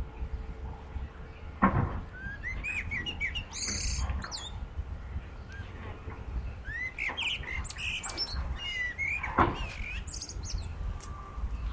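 Songbirds singing in phrases of quick, curving chirps, with two sharp knocks, about two seconds in and again near the end, over a low steady rumble.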